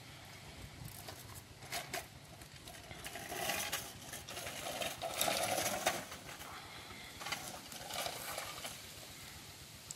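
Baby monkey sucking milk from a plastic sippy bottle: soft slurping and small clicking noises at the spout, with a few louder slurps in the middle.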